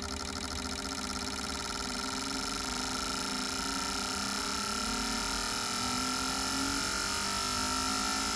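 Autool CT400 injector tester running a flow test, its fuel injectors pulsing rapidly as a steady buzzing rattle with a high whine. It grows slightly louder over the first few seconds, then holds steady.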